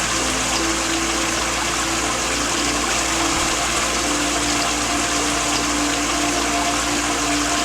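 Waterfall rushing in a steady, unbroken wash, with a few soft held notes of a slow melody underneath.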